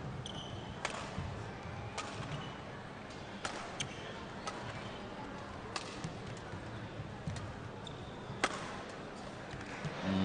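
Badminton rally: the shuttlecock is struck by rackets with sharp cracks about every one to one and a half seconds, with a few brief shoe squeaks on the court floor over a steady murmur from the arena crowd.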